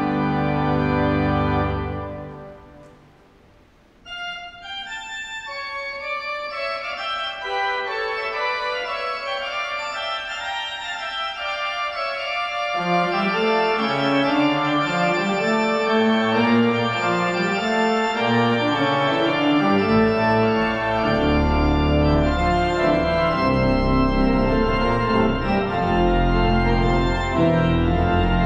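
Organ music: a held chord dies away about two seconds in, and after a brief hush a new organ piece begins softly in the upper notes. Lower parts come in about halfway through, and later a deep bass line, so the music grows fuller and louder toward the end.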